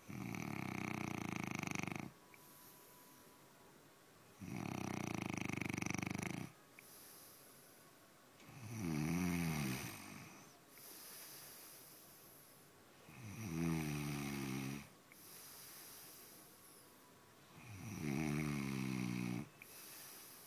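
Snoring: five long snores about every four to five seconds, each lasting about two seconds. The first two are a steady rasp, and the last three rise and fall in pitch.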